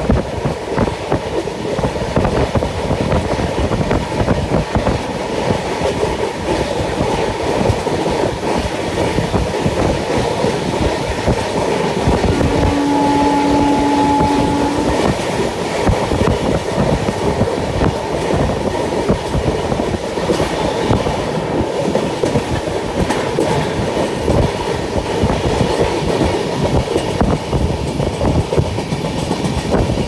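Train running at speed, heard from aboard: a steady rumble of steel wheels on rail with the clickety-clack of wheels passing over rail joints. A single steady tone sounds for about two seconds a little before the middle.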